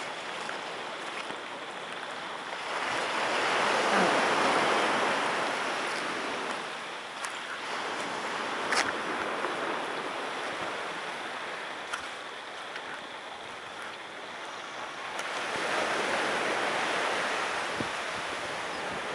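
Sea surf washing onto a sandy beach: a steady rush of waves that swells louder twice, about three seconds in and again near the end, with a faint click in between.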